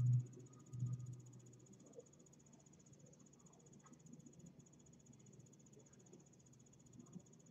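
Faint room tone: a steady high-pitched chirring throughout, with a low hum in the first second.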